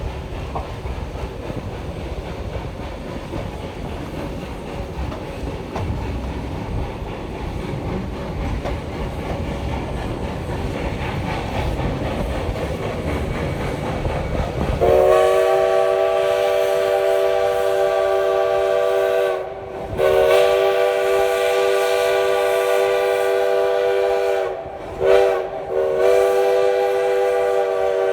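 A steam locomotive's chime whistle sounds two long blasts, one short and a long one, the grade-crossing signal, after about fifteen seconds of the train rumbling along the track with wheels clicking over rail joints. The whistle's pitch sags briefly as each blast cuts off.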